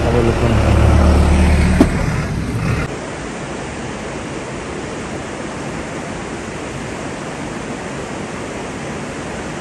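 A vehicle engine running close by, with a heavy low rumble, cuts off abruptly about three seconds in. An even, steady rushing noise remains.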